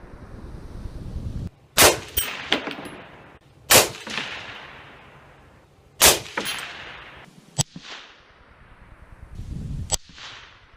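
Rifle shots heard from 100 yards downrange at the target line. Three loud reports come about two seconds apart, each echoing away with smaller after-cracks. Two sharper, thinner cracks follow later.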